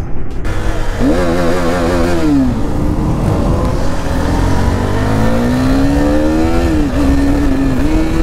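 KTM RC sport bike's single-cylinder engine accelerating through the gears, heard with wind rushing past the on-bike mic: the revs climb about a second in, drop at a shift, climb again for several seconds, drop at another shift near the end and then hold steady.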